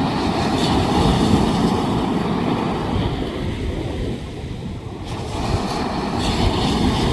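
Wind rumbling on the microphone over the rush of surf, easing briefly about four seconds in.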